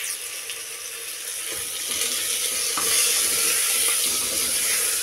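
Chopped tomatoes and onions sizzling in hot oil in a clay pot as they are stirred with a wooden spoon. The sizzle grows a little louder about two seconds in, with a couple of light knocks from the spoon.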